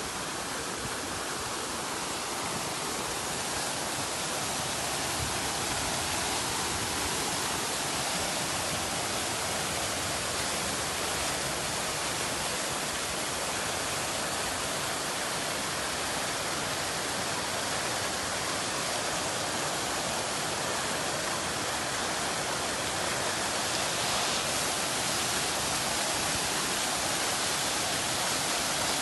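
Fountain water jets spouting and splashing back down into the pool: a steady rush of falling water.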